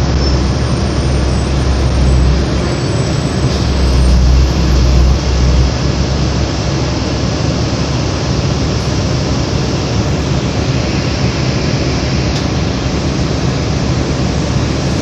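City bus cabin noise while under way: a steady engine and road rumble heard from inside the bus. A deep rumble swells and is heaviest over the first several seconds, then settles into a steadier, lighter drone.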